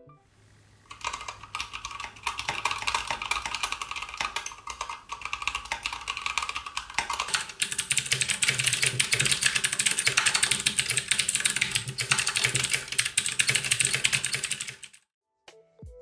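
Fast typing on compact mechanical keyboards, played in turn. First a WhiteFox with tactile Kailh Brown switches. About seven seconds in, a Poker 3 with clicky Cherry MX Blue switches, sharper and brighter. About twelve seconds in, another keyboard. The typing stops shortly before the end.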